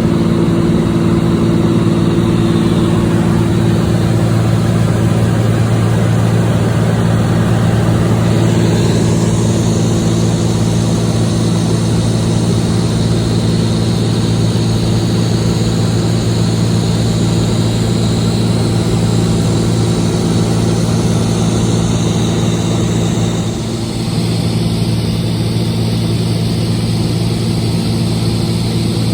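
Cessna 206H Stationair's six-cylinder Lycoming engine and propeller droning steadily in flight. The drone dips briefly about three-quarters of the way through and then settles a little lower.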